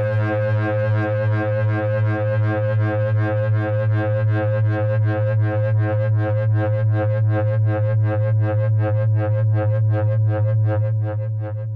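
Electronic drone music: a sustained low chord rich in overtones, pulsing evenly about three times a second, beginning to fade out near the end.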